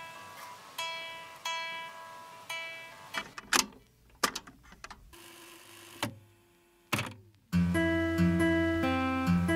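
Instrumental background music: single plucked notes about every three-quarters of a second, then a few sharp hits, a held note and a brief gap near the middle, before a louder, fuller part with a steady bass comes in about three-quarters of the way through.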